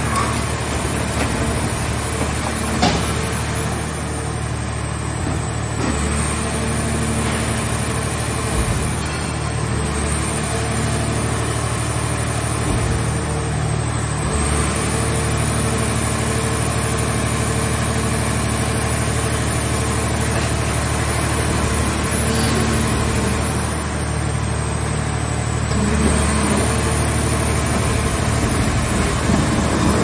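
Mobile scrap car-shell baler running: its engine and hydraulic system give a steady drone, with a high whine that dips in pitch and comes back up several times. One sharp knock about three seconds in.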